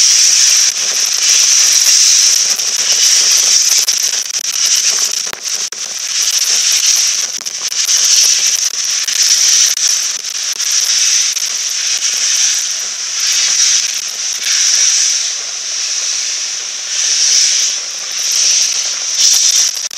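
LMS Princess Coronation class Pacific steam locomotive 46233 starting away slowly, its cylinder drain cocks blowing steam in a loud hiss that swells and fades with each beat of the wheels, with crackling chuffs.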